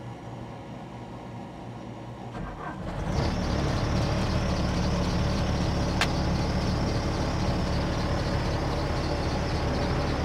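Bobcat S250 skid steer's turbo diesel engine on a test run after both actuators were replaced. It comes up loud about three seconds in, then runs steadily, with a single sharp click near the middle.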